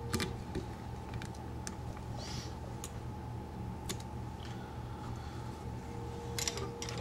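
Scattered faint clicks and light taps from small fly-tying tools being handled at the vise while the thread is whip-finished, over a steady low hum.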